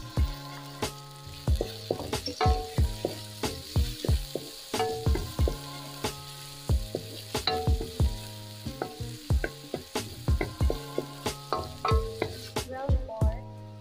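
Chopped garlic and onion sizzling in hot oil in a wok, stirred with a wooden spatula, under background music with a steady beat of about two hits a second.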